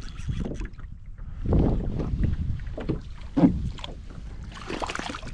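Irregular knocks and rustling on a fishing kayak as a thrashing King George whiting is brought aboard and handled.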